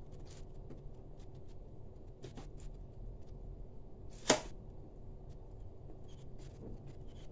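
Quiet eating sounds: faint scattered clicks of chewing and of fingers working rice on a plate, with one sharp click about four seconds in.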